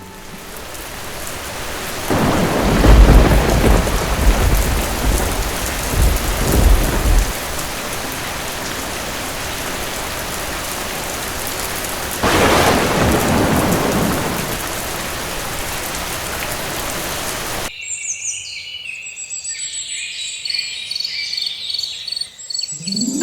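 Steady heavy rain with two rolls of thunder, the first and loudest about two seconds in, the second about twelve seconds in. The rain cuts off suddenly near the end and short high chirping tones follow.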